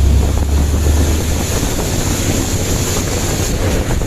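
Hino dump truck on the move: a low engine and road rumble under heavy wind noise on the microphone, the deepest rumble easing about a second in.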